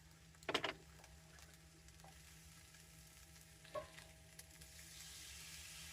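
Peppers and mushrooms frying in a pan with a quiet sizzle, and a utensil clattering against the pan about half a second in and knocking again near four seconds. The sizzle grows louder near the end.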